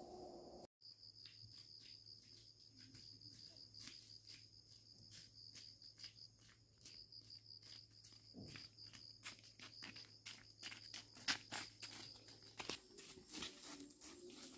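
Faint, steady, high insect trill over a run of light, irregular clicks and knocks that come thicker in the second half.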